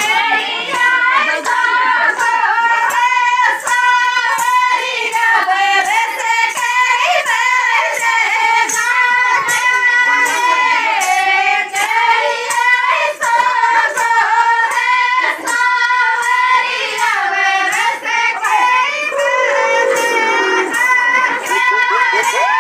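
A high female voice singing a Rajasthani folk song over a steady beat of sharp strikes, about three a second.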